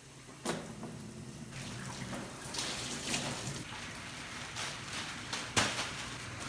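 Water from a garden hose running and splashing into a large tub, with a sharp knock about half a second in and a louder one a little after five seconds.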